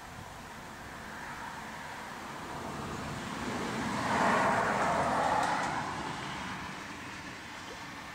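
A car passing by, its tyre and engine noise swelling to a peak about four to five seconds in and then fading away.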